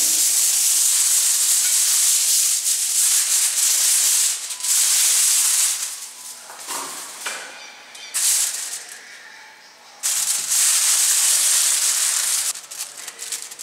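Sheet of aluminium foil crinkling loudly as it is spread over a metal baking tray, pressed flat and crimped down around the edges, with two short lulls in the second half.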